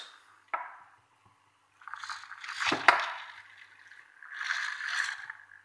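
Hobby servo motors of a homemade robot arm whirring in two bursts as the arm swings, with a sharp knock about three seconds in.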